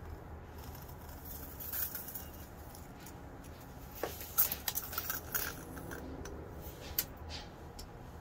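Small titanium keyring tape measure being handled, its blade pulled out: light scattered clicks and scrapes, busiest about four to five and a half seconds in.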